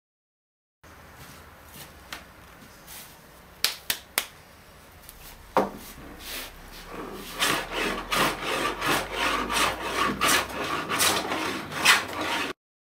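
Scattered sharp knocks, then from about seven seconds in a quick, even run of hand scraping strokes on wood, about two to three a second.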